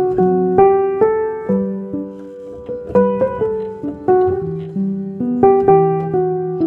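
Gentle background piano music, with notes and chords struck one after another and each left to fade.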